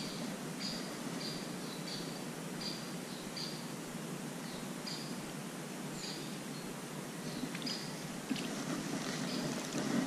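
A small bird gives a short, high chirp over and over, about one every three quarters of a second, over a steady outdoor hiss.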